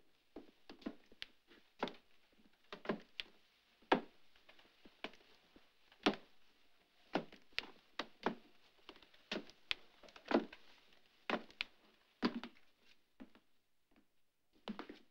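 Footsteps on a staircase: a string of irregular knocks and thuds, about two or three a second, some louder than others.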